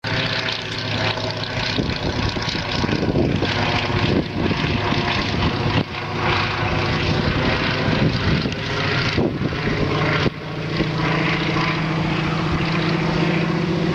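Fairey Swordfish biplane flying past, its Bristol Pegasus nine-cylinder radial engine and propeller running loud and steady, with a few sudden brief dips in level.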